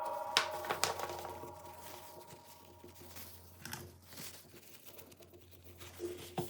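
Background music dying away, then faint scattered small clicks and light crinkling of hands handling small parts.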